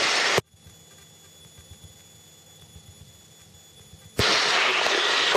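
Helicopter intercom audio with the mic gate switching: a loud rush of cockpit noise cuts off suddenly, leaving a faint hum for about four seconds, then comes back just as suddenly.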